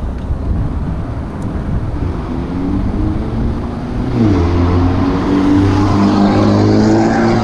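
Wind and road rumble while riding a bicycle. From about four seconds in, a motor vehicle's engine hum comes in close by and gets louder as it draws alongside.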